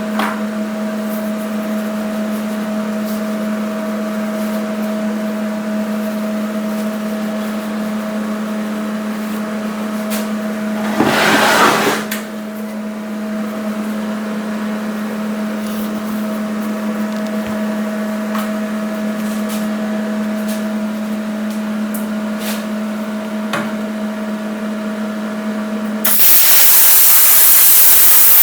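A steady hum from the running shop equipment, broken about eleven seconds in by a one-second blast of air, then near the end a plasma cutter's torch starts cutting 1/4-inch steel plate with a loud, steady hiss.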